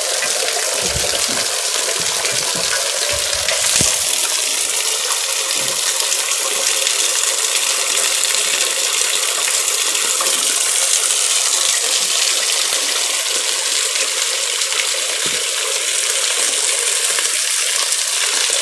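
Water from a small spring running steadily down a rock face and splashing as a mug and metal pot are filled under it.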